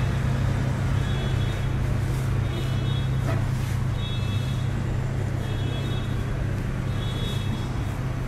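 Steady low hum of supermarket chest-freezer refrigeration, with faint high-pitched tones recurring every second or so.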